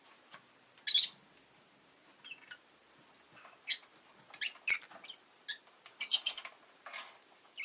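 Rosy-faced lovebirds giving short, sharp chirps at irregular intervals, the loudest about a second in and two close together around six seconds in.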